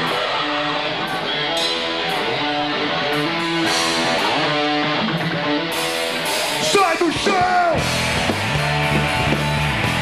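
Rock band playing live: electric guitar and drums with cymbal hits, sliding pitches just before seven seconds, then a heavier full-band section with loud bass from about eight seconds in.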